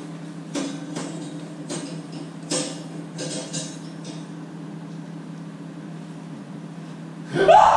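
Paper rustling and crackling as an envelope is opened and a ticket handled, several brief rustles over a steady low hum. Near the end a loud voice breaks in.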